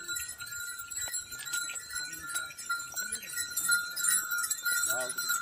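A herd of Pahadi hill goats bleating again and again as they walk, with small collar bells clinking, over a steady high-pitched drone.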